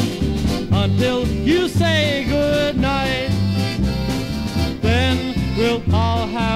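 Polka band playing from a vinyl LP, with an oom-pah bass note about twice a second under a gliding melody line.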